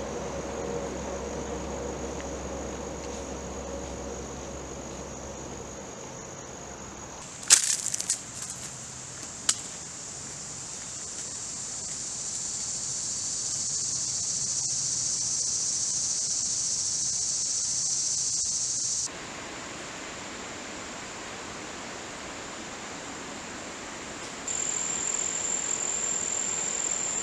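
Steady high-pitched insect chorus that grows and drops in level abruptly a few times, with a few sharp clicks about a third of the way in.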